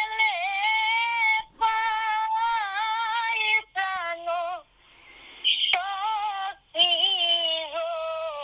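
A very high-pitched singing voice in short phrases of one to two seconds, its pitch wavering, with a longer break about five seconds in.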